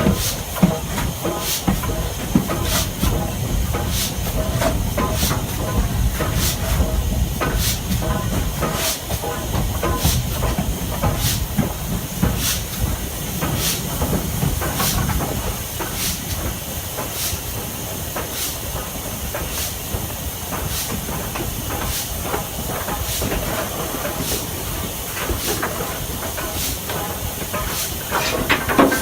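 Stanier 8F 2-8-0 steam locomotive hissing steam over a steady low rumble, with a sharp tick repeating a little slower than once a second.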